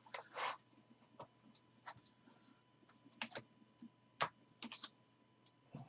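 Faint, irregular light clicks and taps of trading cards in plastic sleeves and top loaders being handled and set down on a table.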